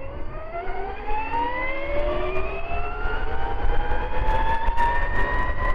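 72-volt-upgraded X Pro 4000 electric dirt bike accelerating, its motor giving a rising whine that climbs steadily and levels off near the end. A low rumble runs underneath and grows stronger partway through.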